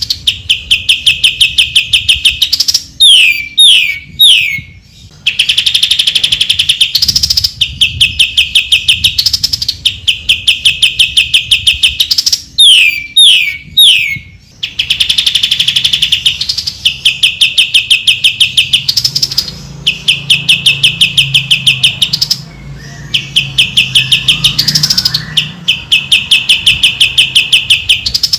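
Greater green leafbird (cucak ijo) singing: long, fast runs of sharp repeated high notes, broken twice by a set of three quick falling whistles, a few seconds in and again about halfway.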